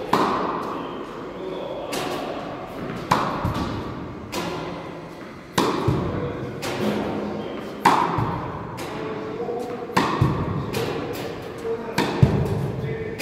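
Tennis balls being struck, sharp pops about every one to two seconds, each ringing on in the echo of a large indoor court.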